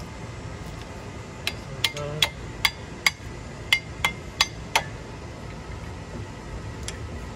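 Sharp metallic clicks and clinks, about nine in three seconds and then stopping, as brake pads and their metal hardware are handled and fitted at a car's front disc brake caliper bracket.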